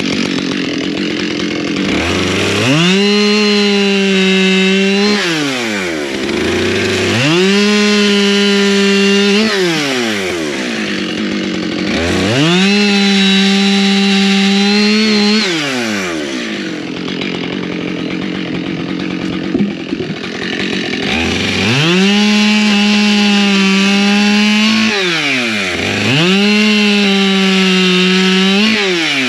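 Husqvarna chainsaw bucking firewood, five cuts in a row: each time the engine revs up to full throttle, holds a steady high pitch for two to three seconds under load, then drops back to idle. There is a longer idle pause midway.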